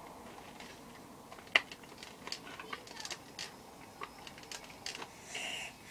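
Irregular plastic clicks and taps as foam darts are pushed one at a time into a Nerf gun's magazine, with one sharp click about one and a half seconds in and a brief rustle near the end.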